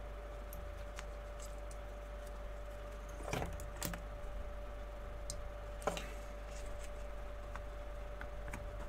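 Light clicks and rattles of cables and connectors being handled on the bench, with a short rattling cluster about three and a half seconds in and a sharp click near six seconds, over a steady electrical hum.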